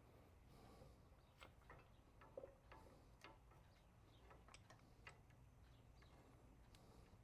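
Faint, irregular light clicks and taps of metal parts as a motorcycle rear wheel is worked onto its hub's driveline shock absorbers, about a dozen over several seconds, the sharpest about two and a half seconds in.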